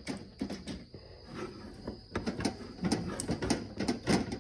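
Irregular clicks, taps and knocks, like handling or something being bumped and moved, over a faint steady high-pitched whine.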